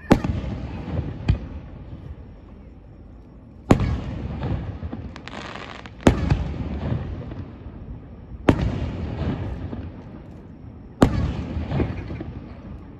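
Aerial firework shells bursting: a sharp boom about every two and a half seconds, with a smaller bang just after the first, each followed by a long rumbling echo that fades away.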